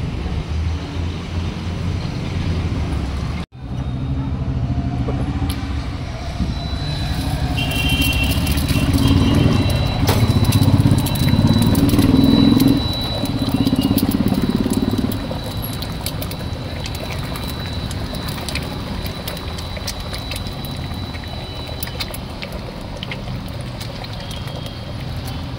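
Eggs frying in oil in a small cast-iron pan, with scattered crackles and spatters over steady background noise. A low rumble swells between about 8 and 15 seconds in.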